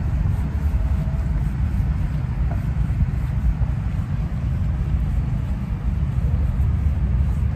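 Wind buffeting a handheld camera's microphone outdoors: a steady, uneven low rumble.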